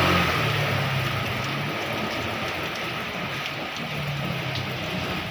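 Heavy rain falling steadily, with a low hum underneath that fades away over the first couple of seconds and comes back briefly near the end.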